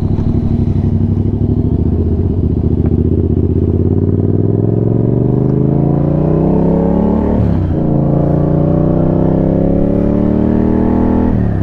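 Motorcycle engine accelerating on the road. Its pitch climbs slowly for about seven seconds, drops abruptly at an upshift, then climbs again, with another shift right at the end.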